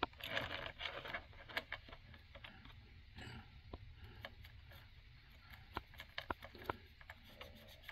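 Faint scattered ticks and light scrapes of a fingertip rubbing and pressing pastel onto a brass HO-scale model locomotive and tender, with small knocks of the model against the mat.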